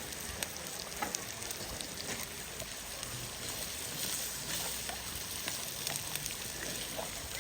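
Food sizzling in a hot pan: a steady frying hiss with small crackles and pops throughout.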